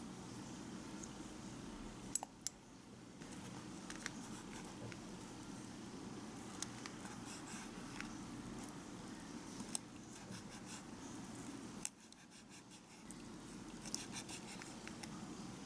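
Faint scattered clicks and light taps of a small knife slicing raw chicken on a ridged wooden cutting board, over a steady low hum, with a quick run of ticks near the end.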